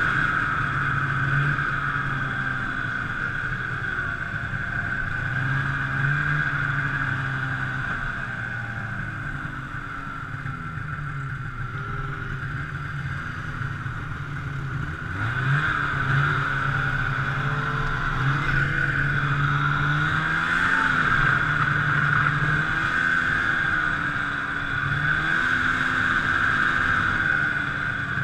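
Snowmobile engine running at speed under the rider, easing off and quieter for a few seconds around the middle, then accelerating hard about halfway through, with the pitch rising and falling as the throttle changes. A steady high hiss runs alongside.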